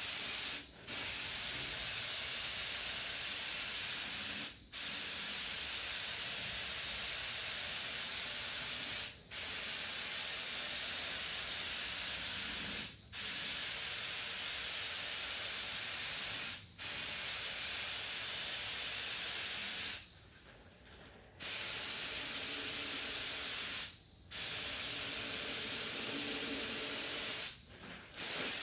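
Compressed-air spray gun spraying paint in long passes. The steady hiss cuts off briefly every three to four seconds between passes, with a longer pause of over a second about twenty seconds in.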